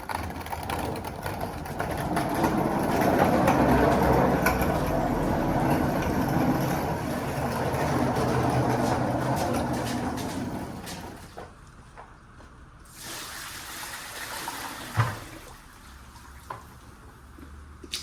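Dirty water from a drainage basin gushing and splashing loudly for about nine seconds, then easing off to trickling with a few sharp knocks near the end.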